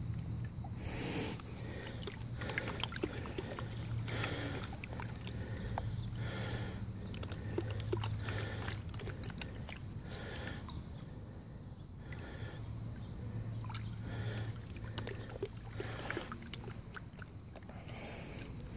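Water sloshing and swishing in a plastic gold pan as it is swirled and dipped in a tub of water, in repeated swells every second or two, with small clicks of gravel in the pan.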